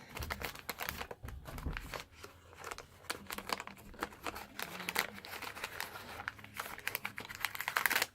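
Wax-paper wrapper of a 1981 Donruss baseball card pack crinkling and tearing as it is opened by hand, a dense run of irregular crackles.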